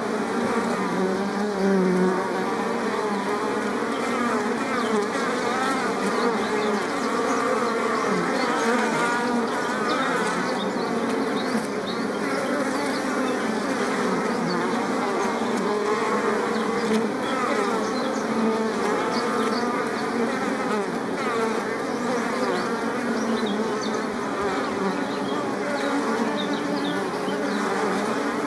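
Many bees buzzing at once: a steady, dense drone of overlapping wavering tones.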